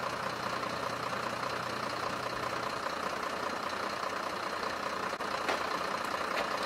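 Fire truck engine idling steadily, with a couple of faint clicks near the end.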